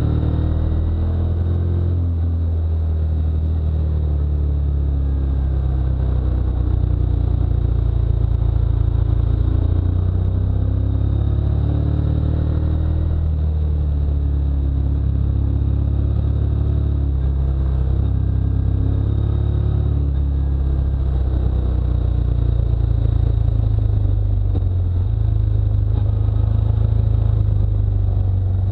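Motorcycle engine running at road speed, its note rising and falling again and again with throttle and gear changes, over a heavy low rumble of wind on the microphone.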